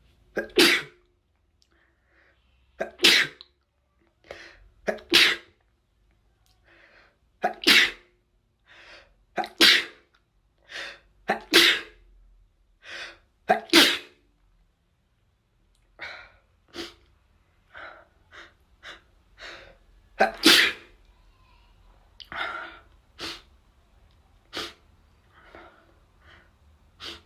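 A person sneezing over and over: a run of sharp sneezes about two seconds apart with short catching breaths between them, then, after a brief pause halfway through, a further run of sneezes.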